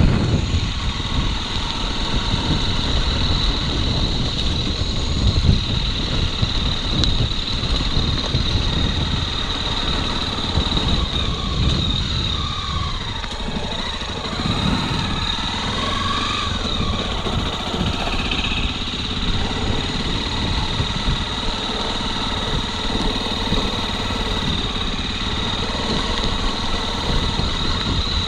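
Motorcycle engine running at low, steady revs, a continuous rumble with a steady high-pitched tone above it.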